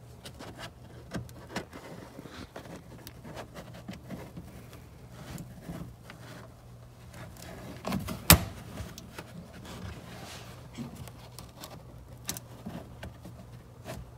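A trim removal tool and fingers working at a stubborn plastic retaining clip in the carpeted trunk lining: scattered small clicks, taps and scrapes of plastic, with one sharp loud click about eight seconds in. A steady low hum runs underneath.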